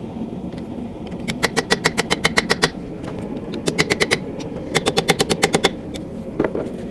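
Hammer tapping quickly on steel at the anvil, about eight to ten ringing metallic blows a second, in three runs: a long one starting about a second in, a short one near the middle and another about five seconds in. These are the blows that drive the chisel marks of a forged steel feather deeper.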